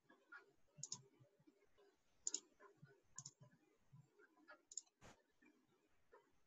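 Near silence broken by a few faint, sharp computer mouse clicks, the loudest about five seconds in.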